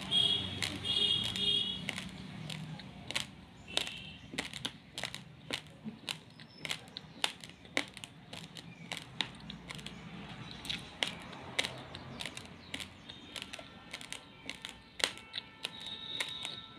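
Raw Daawat basmati rice grains crunching as they are chewed: sharp, irregular cracks, about two or three a second.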